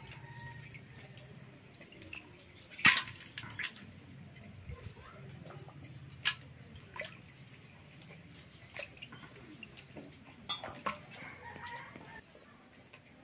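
Pieces of fish being washed by hand in a steel bowl of water and dropped into a steel colander: light splashes and drips with scattered clicks and clinks of metal, the sharpest about three seconds in.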